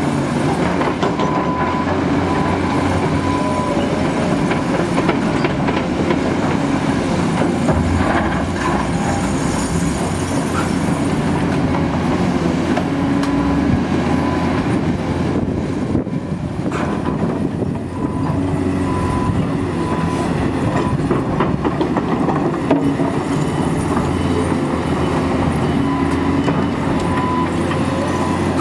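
Heavy diesel earthmoving machines working snow: a Cat hydraulic excavator and wheel loaders running steadily under load, with scattered knocks and clanks. A high tone sounds briefly several times over the top.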